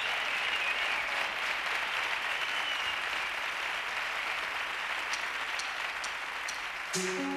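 Studio audience applauding steadily. About seven seconds in, the live band's intro comes in with sustained instrument notes.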